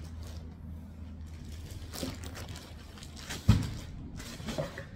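Plastic wrapping on bundled skeins of yarn crinkling faintly as a bundle is set down and the next is pulled from a cardboard box, with one dull thump a little past the middle, over a low steady hum.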